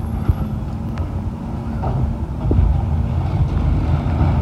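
Automated side-loading garbage truck's engine and hydraulics running as its arm lifts a recycling cart to tip it into the hopper, growing a little louder about halfway through.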